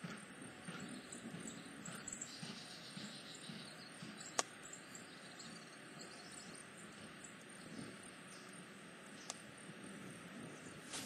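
Faint outdoor background noise, with a sharp click about four seconds in and a fainter one near the end.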